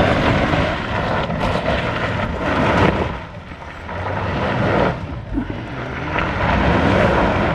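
Ineos Grenadier engine working hard under load as the 4x4 powers up a rutted dirt climb on momentum without its cross-axle lockers. The revs ease briefly about three seconds in, then build again.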